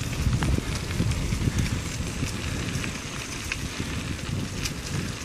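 Wind buffeting the microphone of a moving bicycle, a low rumble, with bicycle tyres crackling over gravel and dry fallen leaves on the trail.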